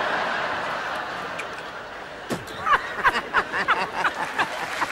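Theatre audience laughing. From about halfway in, a man's loud repeated laugh rings out over it.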